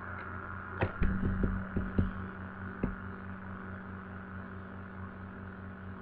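A synthesized SD-10 siren imitation made in Audacity plays back in the fading tail of its wind-down, its tone growing weaker, over a steady hum. A few sharp clicks sound in the first three seconds.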